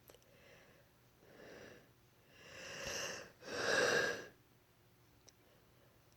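A woman breathing in gasps while trying to bring on a sneeze: four breaths, each louder than the last, the loudest about four seconds in.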